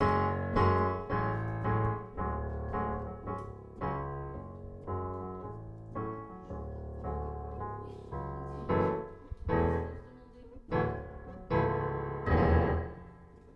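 Piano music: a slow run of struck chords and notes, each ringing and dying away, with fewer, louder chords in the second half.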